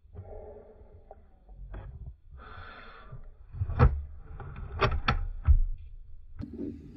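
Handling noise from an air rifle with a scope-mounted camera being shifted and swung around: rustling and several sharp knocks, loudest about four and five and a half seconds in.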